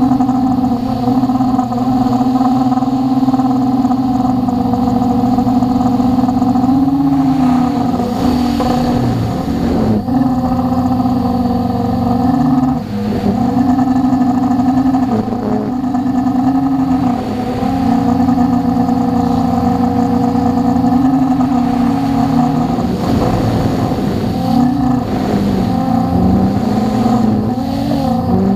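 Quadcopter's electric motors and propellers running, heard close up from a camera on its frame: a steady whine of several tones whose pitch dips and rises again every few seconds as the throttle is worked.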